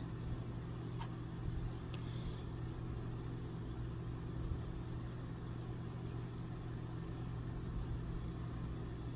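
Steady low background hum, with a couple of faint light clicks about one and two seconds in.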